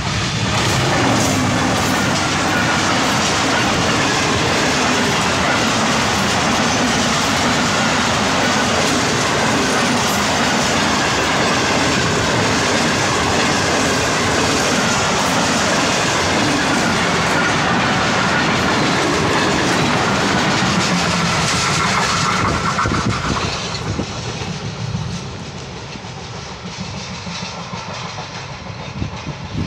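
Passenger express train passing at speed close by: the GEU-40 diesel-electric locomotive, then a long rake of coaches rumbling and clattering over the rails. The sound is loud and steady, then falls away about 23 seconds in.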